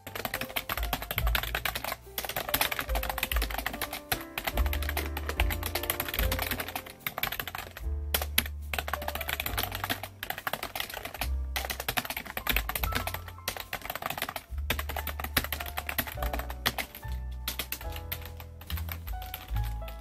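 Fast typing on a computer keyboard, a quick run of keystroke clicks with a few short pauses, over background music.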